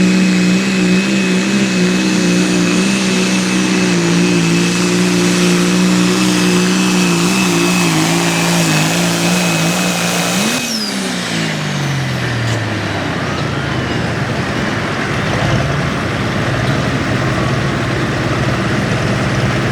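Hot farm pulling tractor's turbocharged diesel engine running flat out at steady high revs. About ten seconds in, the revs flare briefly, then the throttle is cut and the engine winds down, leaving a steady rushing noise.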